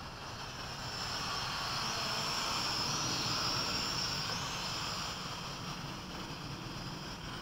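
Hubsan H502E quadcopter's motors and propellers whining in flight, a layered high-pitched buzz that wavers slightly in pitch and grows louder through the middle before easing off.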